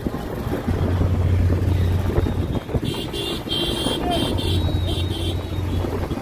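Traffic noise while riding along a busy road: a steady low engine hum over road and wind noise. From about three seconds in, a high-pitched tone pulses on and off for a couple of seconds.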